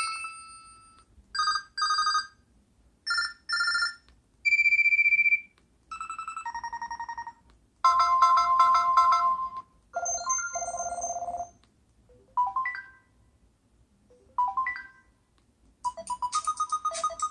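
LG Rumor 2 cell phone playing its preloaded ringtones. It is a string of short electronic beeps, chimes and trills at different pitches with brief gaps between them. Near the end a fast, repeating warbling ring begins.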